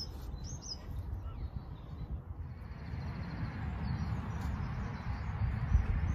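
Wind buffeting the microphone as a low rumble, growing louder after about three seconds, with a few short high bird chirps in the first second.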